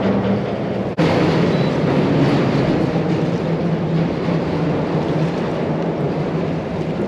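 Steady rush of wind and water around a fishing kayak, with the low steady hum of its electric trolling motor underneath. A short break about a second in.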